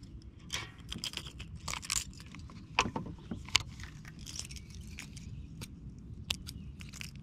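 Fishing tackle being handled: irregular light clicks, rattles and scrapes, with two sharper clicks about three and three and a half seconds in.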